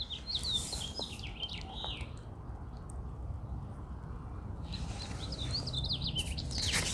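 A small bird chirping in quick runs of short, high notes, one run in the first two seconds and another about five seconds in, over a steady low outdoor rumble.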